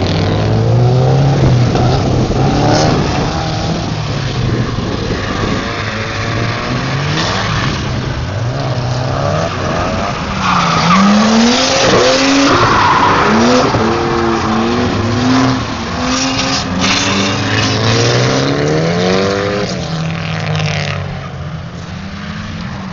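Turbocharged SR20DET four-cylinder in a Mk2 Ford Escort, revving up and down repeatedly as the car drifts, with tyres squealing, loudest about halfway through. The sound fades near the end as the car draws away.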